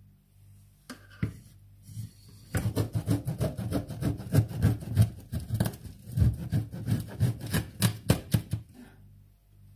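A knife sawing and crunching through hard caramel rice-and-peanut brittle (gipang) in a metal tin on a wooden board, in rapid rasping strokes. A single sharp knock about a second in.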